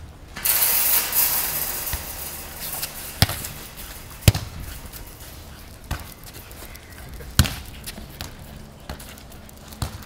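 A football kicked and bouncing on a tarmac court: six sharp separate thuds, roughly one every second and a half. Near the start a loud rushing noise swells and fades over about two seconds.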